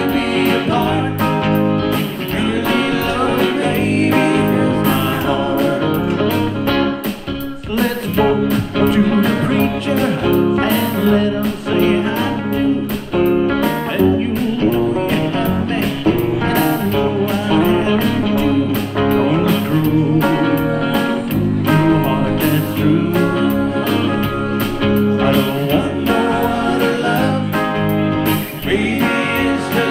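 Live rock-and-roll duo: two electric guitars playing with singing over a steady beat.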